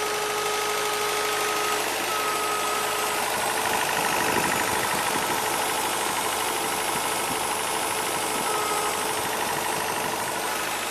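Truck engine idling with an oscillating sound that speeds up and slows, and a thin whine that comes and goes. The engine's cooling system is mid-flush on plain water. The owner cannot say what the sound is, and a mechanic judged it harmless.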